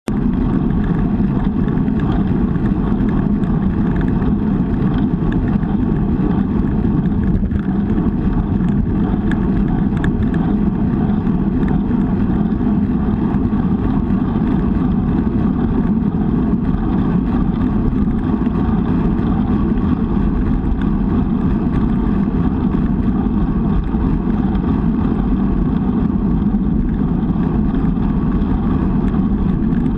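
Steady loud wind rumble and road noise from a bicycle-mounted camera moving at racing speed, unbroken throughout.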